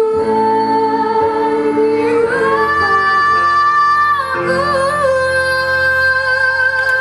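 A young woman singing over an acoustic guitar ensemble, holding long, slightly wavering notes from about two seconds in.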